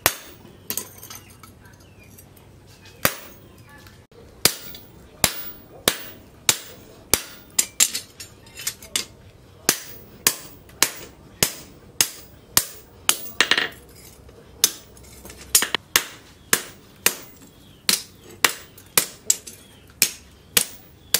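Hammer blows on a cold chisel held against a thin leaf-spring steel blank on a steel anvil post, cutting out the knife's outline; each blow gives a sharp metallic clink with a short ring. One blow at the start, a pause of a few seconds, then a steady run of blows about every two thirds of a second.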